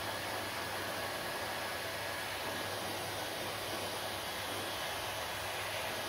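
Handheld hair dryer running steadily, blowing a constant rush of air over damp hair, with a low motor hum underneath.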